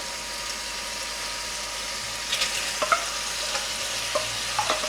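Food sizzling in a frying pan with a steady hiss. A utensil knocks and scrapes against the pan a few times in the second half as the food is stirred.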